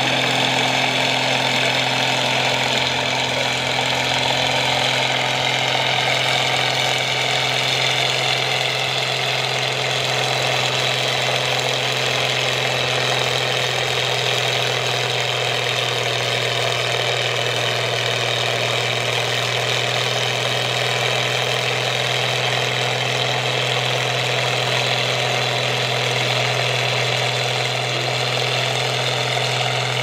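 International tractor's diesel engine running steadily under heavy load while pulling a brake sled, holding one constant pitch throughout.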